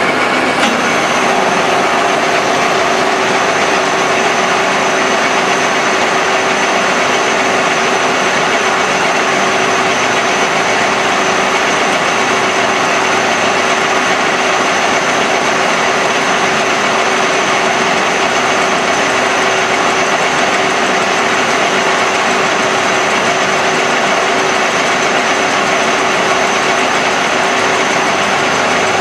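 A machine running steadily with a constant hum and a high whine that set in about half a second in.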